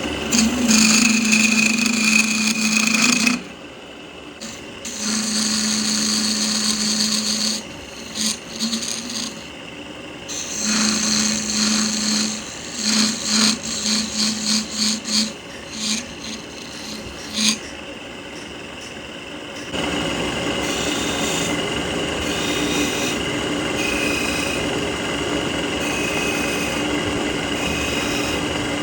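Power tool working wood, its motor run in bursts of a few seconds and then in short stop-start pulses; about two-thirds of the way through, a steadier motor hum takes over and runs on evenly.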